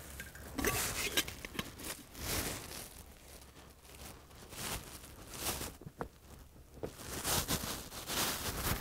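Footsteps shuffling in dry fallen leaves, an irregular on-and-off crunching and rustling with a few sharper crackles.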